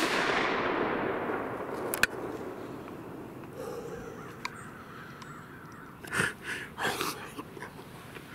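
The report of a .223 rifle shot rolling away through the woods, fading out over about three seconds. A sharp click comes about two seconds in, and two short rough sounds about six and seven seconds in.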